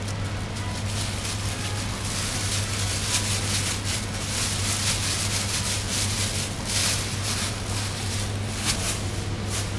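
Thin plastic carrier bag crinkling and rustling in repeated bursts as chicken pieces are tossed in flour inside it and the bag is squeezed and worked by hand. A steady low hum runs underneath.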